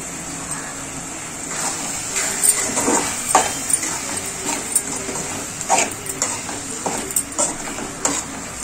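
Metal ladle stirring prawn masala in a metal kadai, with irregular clinks and scrapes against the pan's sides starting about a second and a half in.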